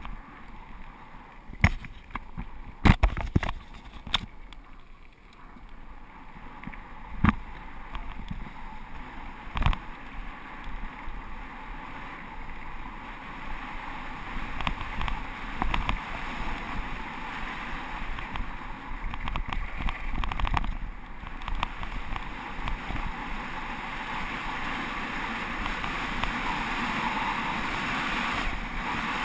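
Wind rushing over the microphone of a bike-mounted GoPro HD Hero2 and the rumble of tyres on gravel, growing louder as the bike picks up speed downhill. Several sharp knocks in the first ten seconds come from the bike and camera jolting over bumps.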